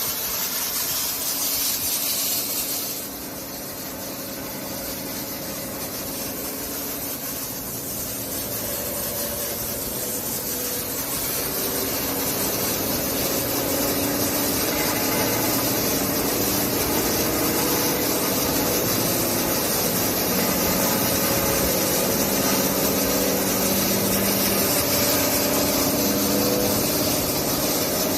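SCM CL 110K RR wide-belt sander running. A steady hiss cuts off about three seconds in, then the machine's hum, with several steady tones, grows gradually louder and holds steady.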